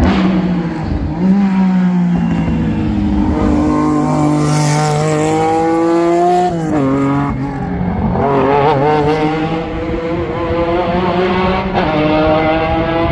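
Historic racing car engine accelerating hard. Its note climbs steadily and then drops sharply at a gearshift about seven seconds in, then climbs again.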